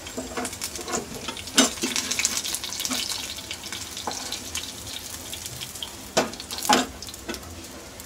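Coated chicken sticks frying in shallow oil in a nonstick pan, a steady sizzle and crackle. Over it comes the clatter of a slotted metal spatula knocking and scraping against the pan as the pieces are lifted out, loudest about a second and a half in and twice more near the end.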